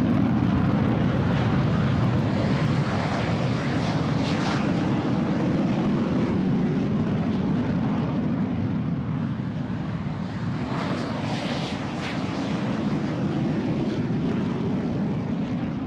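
Aircraft engine noise: a loud, steady rumble with a hiss above it, easing slightly in the second half.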